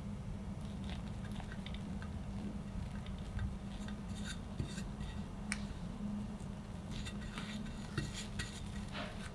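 Metal palette knife and cake scraper spreading and smoothing chocolate whipped cream on a cake, making soft scrapes and light metallic clicks that come thicker from about three seconds in, over a low steady hum.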